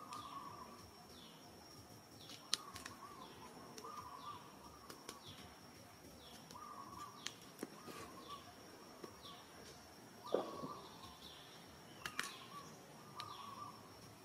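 Faint forest ambience: birds calling over and over, short falling notes and lower warbling notes each about once a second, over a steady high insect whine, with a few sharp clicks.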